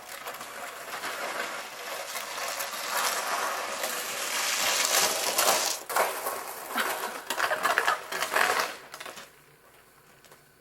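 Crunching and scraping in snow: a steady crackly rush that breaks into separate crunches and stops about nine seconds in.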